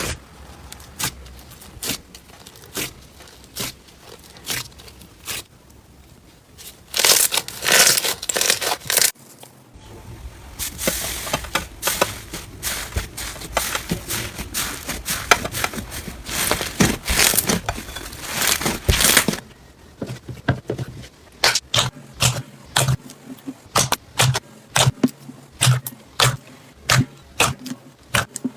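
Slime being squeezed, pressed and stretched by hand, giving runs of sharp crackling pops and crunches. The texture changes abruptly about nine and again about nineteen seconds in, as one slime gives way to another.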